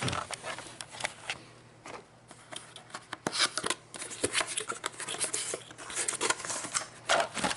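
Hands handling a small cardboard box, with irregular scraping and rubbing of the paperboard and sharp little clicks as the end flap is pried open.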